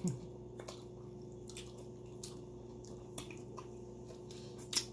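Close-up eating sounds: scattered wet smacks and clicks of chewing and of fingers working the food. The loudest comes near the end, over a faint steady hum.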